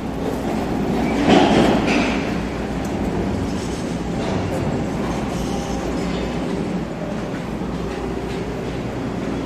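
A Tobu line train running past the station: a steady rumble of wheels on track that swells for a moment about a second in.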